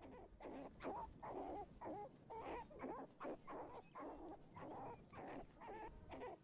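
Arctic fox cubs whining and yelping in a quick string of short, wavering calls, about three a second.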